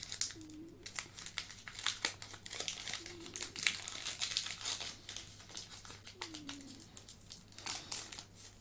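Foil wrapper of a Pokémon Cosmic Eclipse booster pack crinkling as it is worked open by hand, with dense irregular crackles throughout.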